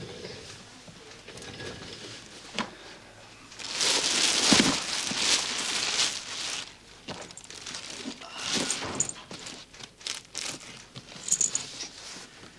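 Clear plastic bag crinkling and rustling as it is handled, loudest about four seconds in, with shorter bursts of rustling later.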